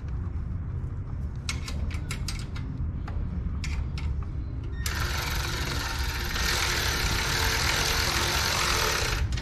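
Socket ratchet clicking in short runs as exhaust fasteners are worked, over a steady low rumble. About five seconds in, a loud steady hiss starts, swells, and cuts off suddenly near the end.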